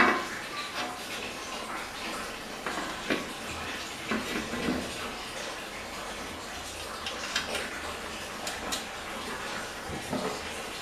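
Handling noise of a metal fan blade being fitted onto a fan's motor shaft and its hub nut screwed on by hand: scattered light clicks and taps, with a sharper knock at the start, over a steady background hiss.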